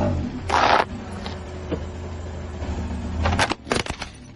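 A car tyre crushing a plastic toy case, with several sharp cracks and snaps of breaking plastic near the end, over the low steady hum of the car's engine. A short loud noisy burst comes about half a second in.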